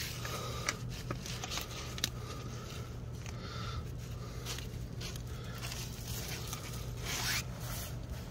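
Faint scrapes and small clicks of a bolt being fitted by hand into the upper mount of a rear shock absorber, with one sharper click about two seconds in, over a steady low hum.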